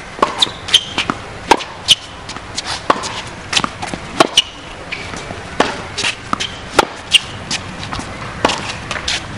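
Tennis balls struck by rackets and bouncing on a hard court during a rally: a quick, irregular series of sharp pops, with short high squeaks in between.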